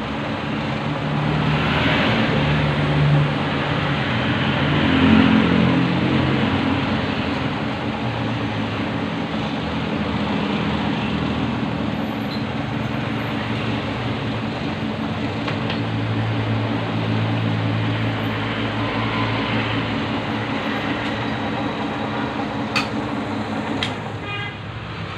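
Metal lathe running while a PTFE rod is turned, its motor and gearing giving a steady low hum over a broad mechanical noise. A couple of sharp clicks near the end.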